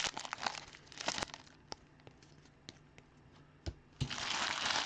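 Trading cards and their packaging being handled: scattered crinkles and small clicks, a few sparse ticks, then a dense rustle of plastic or foil wrapping about four seconds in.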